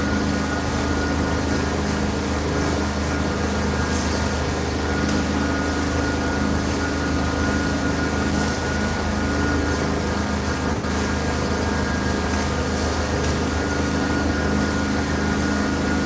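A machine running steadily: a constant low hum with a thin, steady high-pitched whine over it, unchanging throughout.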